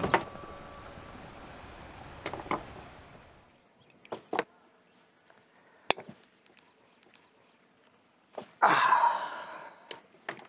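A hiss fading away over the first three seconds, then a few light clicks of small brass propane fittings being handled. Near the end comes a short burst of rushing noise that dies away within about a second.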